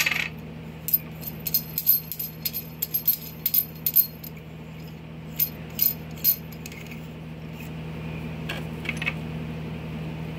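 Small, irregular clicks and clinks as a super tweeter and its black mounting rings are handled and fitted together, mostly in the first two-thirds, with a few more near the end.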